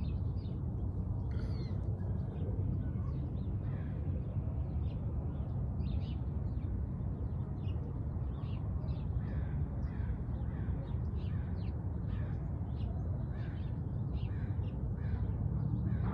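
Birds calling outdoors in short, repeated calls, more frequent in the second half, over a steady low rumble.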